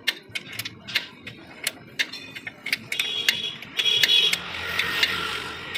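Hand tools clicking and clinking on metal tractor differential parts during a crown-and-pinion job. There are irregular sharp ticks throughout, a ringing metallic clang about three to four seconds in, and a noisy rush near the end.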